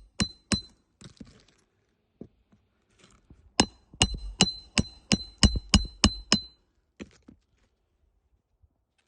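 Hammer striking metal on a shingle roof, most likely driving roofing nails: two blows, then a quick run of about nine strikes at about three a second, each with a short metallic ring, and two fainter taps near the end.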